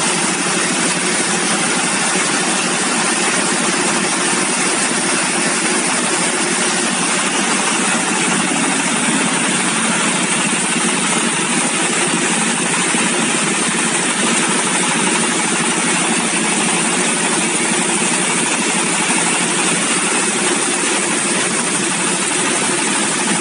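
A stationary engine running at a steady speed, driving a belt-driven crop-processing machine whose rotor runs with an even, unbroken mechanical noise.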